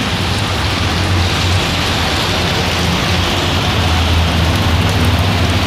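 Heavy rain pouring down steadily, with a low steady hum underneath.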